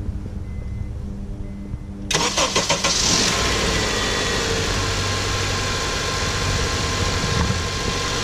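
Honda i-VTEC engine cranking briefly about two seconds in and catching at once, then running steadily. It is being started from a capacitor jump starter, with the car's own battery completely drained. Before the crank there is only a faint beeping about once a second over a low hum.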